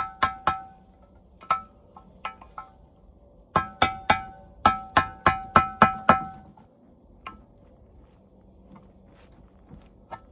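Sharp metal strikes on the steel plate fixed to an old TV's glass picture tube, each ringing out with a clear bell-like tone. There are three quick strikes at the start, a few more, then a fast run of about ten between about three and six seconds in, and after that only a couple of light taps.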